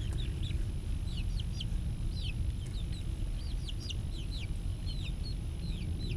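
Young backyard chicks peeping: many short, high chirps, each falling in pitch, often in quick pairs, over a steady low rumble.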